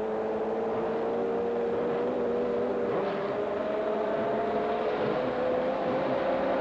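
Drag-racing motorcycle engines at high revs as two bikes run down the quarter-mile strip, a steady engine note that climbs slowly in pitch over the run.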